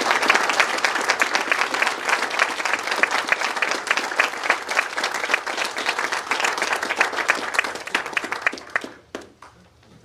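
Audience applauding: many hands clapping in a dense patter that thins out and stops about nine seconds in.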